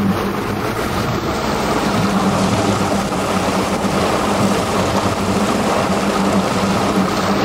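Boat engine running steadily with a constant low hum, under a wash of water and wind noise.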